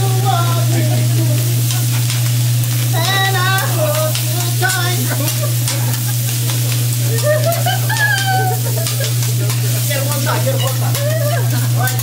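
Food sizzling on a hibachi teppanyaki griddle, with many small clicks and scrapes of the chef's metal spatula as the fried rice is stirred. A steady low hum runs underneath.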